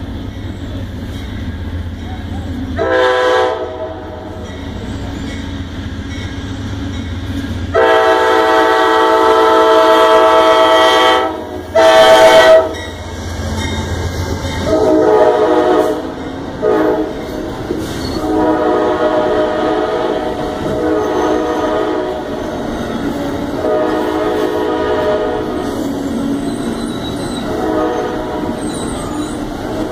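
Amtrak passenger train arriving at a station grade crossing: the locomotive horn gives a short blast, then a long loud blast and a sharp short one, over the rumble of the train. The passenger cars then roll past with a steady rumble and on-and-off tonal ringing.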